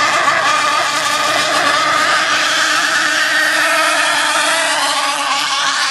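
Radio-controlled twin-engine racing hydroplanes running flat out, a steady high-pitched engine whine whose pitch wavers slightly as the boats pass.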